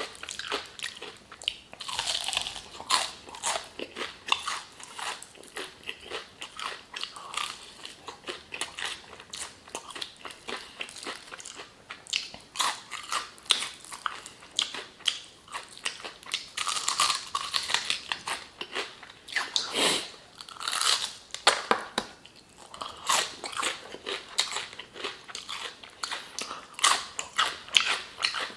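Close-miked mouth sounds of someone eating crispy fried chicken: steady, irregular biting and chewing with crackly crunches of the fried coating and wet smacking.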